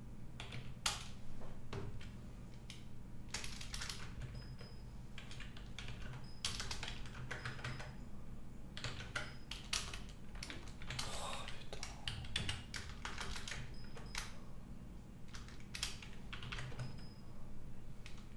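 Typing on a computer keyboard: irregular runs of keystroke clicks with short pauses between them, over a steady low hum.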